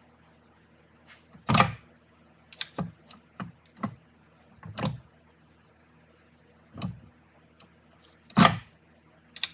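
Metal transfer case parts and hand tools clinking and knocking as they are handled and set down, about nine separate hits, the loudest about one and a half seconds in and near the end.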